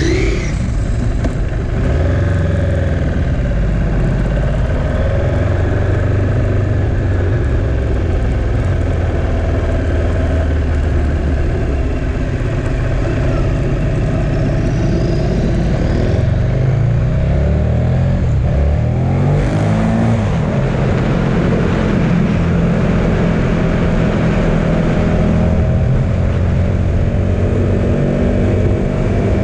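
V-twin sport motorcycle engine running at low speed, then accelerating hard from about sixteen seconds in, its revs climbing in steps through the gears. After that it holds at speed with rushing wind on the microphone.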